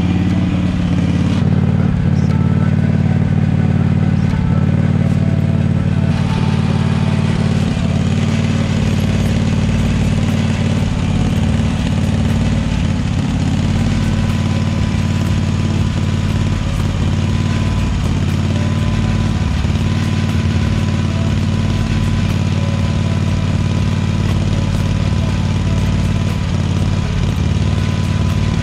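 Small engine of a motorized mulch cart idling steadily, with a low, even hum.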